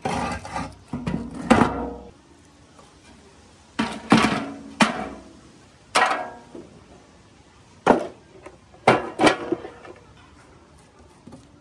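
Rusty sheet-metal panels of a fog machine's housing clanking against each other and the worktop as they are handled: about nine sharp metallic knocks at irregular intervals, each ringing briefly.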